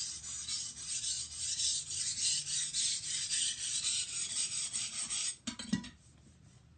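Steel knife blade stroked rapidly back and forth across a wet 400-grit water stone under heavy, burr-forming pressure: a quick, repeated rasping scrape. The strokes stop a little over five seconds in, with a light knock just after.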